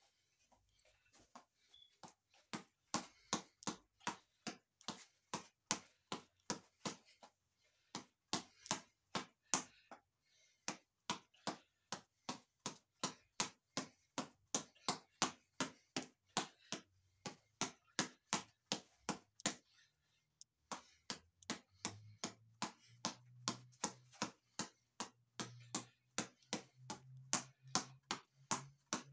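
Boxing reflex ball on a headband's elastic cord being punched over and over: a quick run of sharp taps, about two to three a second, with short pauses between combinations. A low steady hum comes in about three-quarters of the way through.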